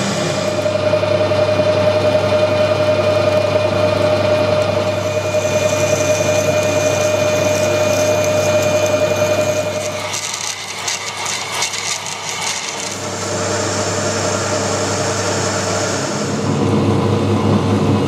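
Metal lathe running while a carbide tool takes a facing cut on a turned metal part: a steady hum with a steady cutting tone over it. About ten seconds in the tone stops and a few seconds of quick clicking follow, then the lathe runs steadily again.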